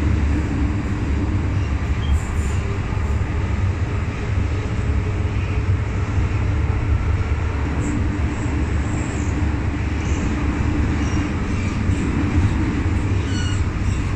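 MTR M-Train electric multiple unit running between stations: a steady low rumble of wheels and running gear on the track, with a few faint brief high squeals in the second half.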